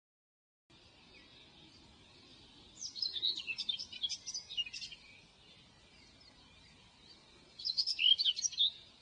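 Birds chirping: two bursts of quick, high chirps, one about three seconds in and another near the end, over a faint steady high hiss.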